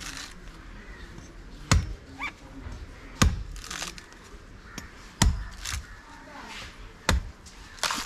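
Five sharp chops of a blade cutting into a coconut, one every one and a half to two seconds.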